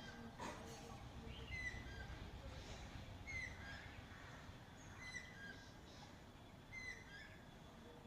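Birds chirping: a short, bright chirp repeated about every one and a half to two seconds, with fainter calls in between, over a low background rumble.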